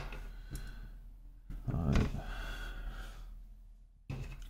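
A man sighs about one and a half seconds in, one long breathy exhale that fades away, with a faint click shortly before it.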